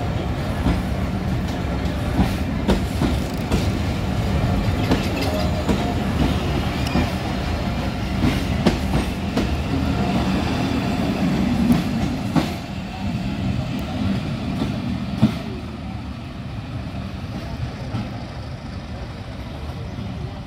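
Passenger train coaches of Danish-built stock rolling past close by, the steel wheels rumbling and clacking over the rail joints. The sound drops away after about twelve seconds as the last coach pulls off down the track.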